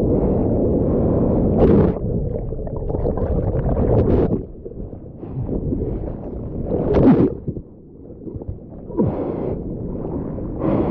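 Broken surf churning around a camera at water level: a constant low rush of whitewater with several sudden loud splashes as waves wash over it. These are big closeout waves, 2.5 to 3 m, pounding the surfer in the impact zone.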